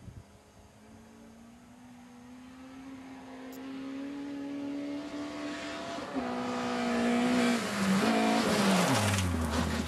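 Small hatchback rally car approaching on a gravel stage, its engine note climbing steadily and growing louder as it accelerates down the straight. About six seconds in the pitch steps down with a gear change, and near the end it falls steeply as the car slows, while the hiss of tyres on loose gravel builds.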